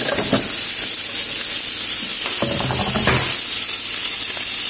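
Two thick bone-in steaks searing in a smoking-hot cast iron grill pan, their fat sizzling steadily and loudly.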